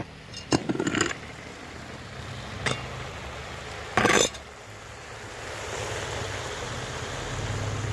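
Utensils clinking a few times over a steady low hum: a cluster of clinks around the first second, one near three seconds, and a louder one about four seconds in.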